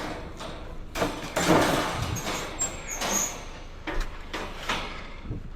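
Scrap shelving being handled and shifted, giving several knocks and clanks with scraping in between.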